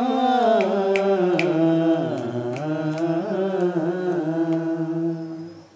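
Men singing a Mappila song without accompaniment, drawing out the last syllable of the line in one long held note that turns and wavers in pitch, then fades out near the end.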